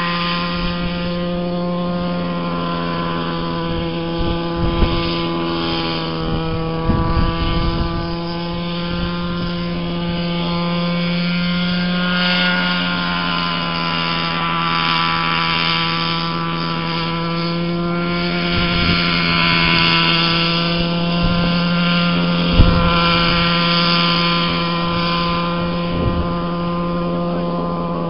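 Radio-controlled scale model helicopter running steadily as it hovers and flies low: a steady whine whose pitch dips and rises slightly. Wind gusts buffet the microphone now and then.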